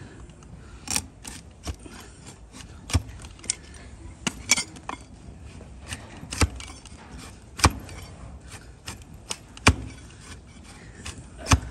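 Overgrown donkey hoof being trimmed: sharp, irregular cracks as the cutting tool bites into thick hoof horn, about a dozen in all, several seconds apart towards the end.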